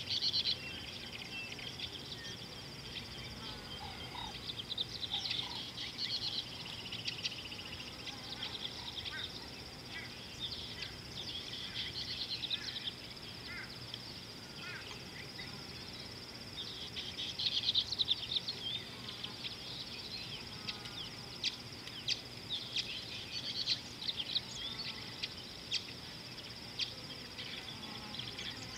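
Wild birds chirping and calling in a busy morning chorus over a steady high-pitched hum, with the calls growing denser about six seconds in and again around eighteen seconds in.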